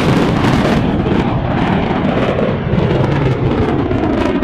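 F-16 fighter jet flying past, its engine a loud, dense rumbling roar with crackling through it.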